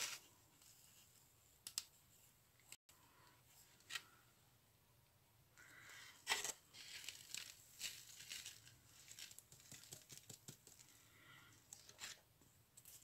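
Faint rustling and scattered light clicks of a paper craft piece and its small decorations being handled, busiest in the second half.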